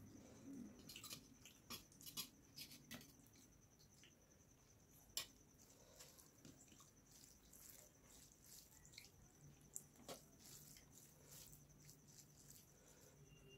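Quiet, wet squishing of fingers mixing rice with fish curry on a steel plate, with scattered small clicks and smacks of eating and one sharper click about five seconds in. A faint steady high whine sits under it throughout.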